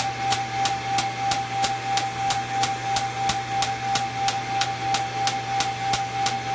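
Rohrer Spectrum erbium (Er:YAG) laser firing pulse after pulse onto facial skin during ablative resurfacing, each pulse a sharp snap, about three a second and very even. Under them run a steady high tone and the steady hum of the smoke evacuator drawing off the plume.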